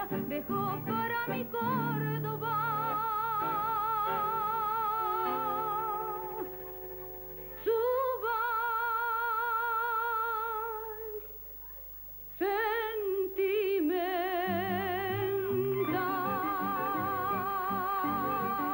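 A woman singing a tango with a band, holding long notes with a wide vibrato. The music drops almost to nothing about eleven seconds in, then she comes back in with more long held notes.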